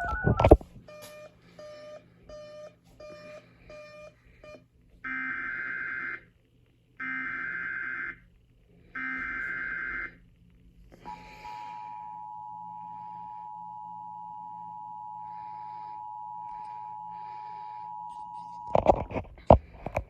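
Emergency Alert System tones: a run of short beeps, then three one-second screeching bursts of SAME header data, then the EAS two-tone attention signal held steady for about eight seconds. A few loud clicks come near the end, as the tone cuts off.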